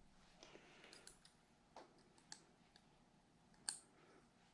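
Faint, scattered small clicks and taps of a hex wrench and small steel bolts being handled while threading motor-plate bolts, about half a dozen, the sharpest near the end.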